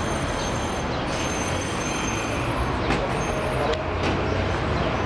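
Street traffic noise, vehicles running steadily on the road, with two short sharp clicks about three and nearly four seconds in.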